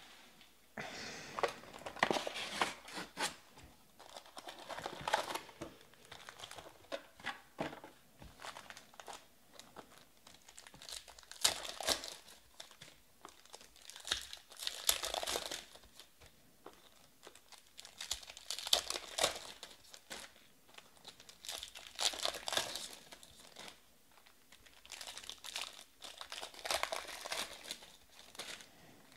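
Foil trading card pack wrappers being torn open and crinkled by hand, in repeated bursts every few seconds.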